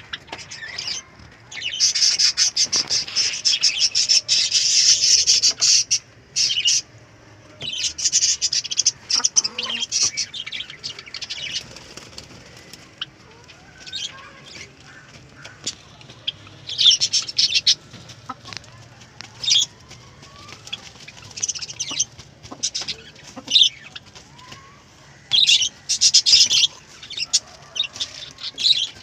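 Chickens moving about in a pen: repeated bursts of rustling and wing flapping, the longest lasting several seconds, with faint chirping calls in between.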